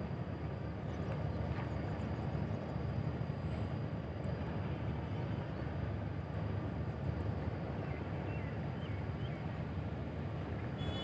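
Steady low rumble of ship engines from the passenger ship Kelud and a tugboat under way, with a faint steady high whine.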